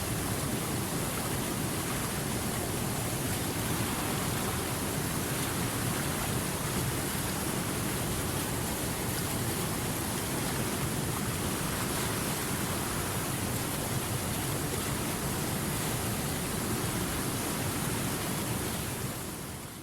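Rushing river water: a steady, even roar of flowing water that fades out near the end.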